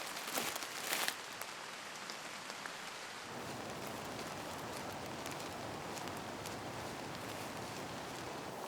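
Two or three footsteps, then a steady hiss like rain that thickens about three seconds in.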